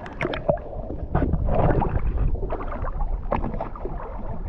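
Sea water sloshing and splashing around a camera held at the surface by a swimmer, with irregular splashes over a low rumble.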